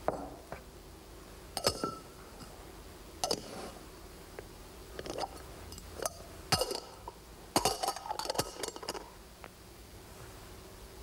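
Magician's cups from a cups-and-balls set clinking against each other as they are handled and nested. A few single clinks a second or two apart, then a quick run of them about two-thirds of the way in.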